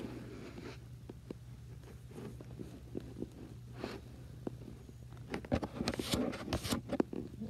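Handling noise from a phone held close: a hand and arm rubbing and brushing against the microphone, with scattered clicks and a burst of rustling and knocks about five and a half to seven seconds in, over a steady low hum.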